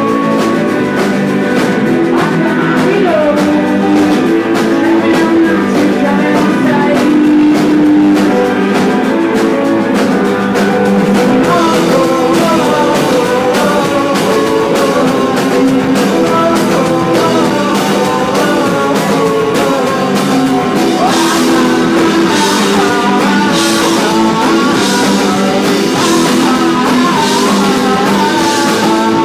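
Live garage rock band playing: electric guitar and drums with a singing voice. The cymbal strokes come in stronger about two-thirds of the way through.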